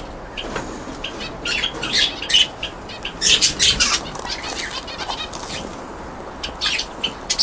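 An aviary of small birds, zebra finches among them, calling with many short, irregular chirps, mixed with some fluttering of wings.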